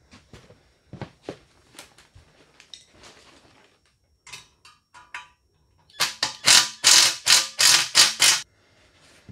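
Cordless power driver run in short trigger bursts, a couple around the middle and then a quick run of about seven near the end, driving screws that fasten a steel plate to a lift's power-unit cart. Light clicks and knocks of metal parts being handled come before.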